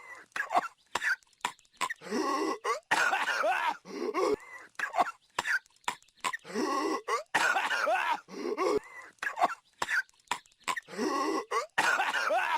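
A cartoon character's voice coughing and hacking over and over: a harsh fit of strained, pitch-bending coughs comes round about every four and a half seconds, with short single coughs between the fits.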